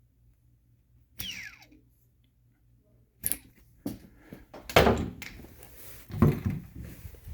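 Small brushless quadcopter motor flicked by hand, giving one short whine that falls in pitch as it spins down, about a second in; the motor has a bad bearing. From about three seconds in come handling knocks and two loud thumps.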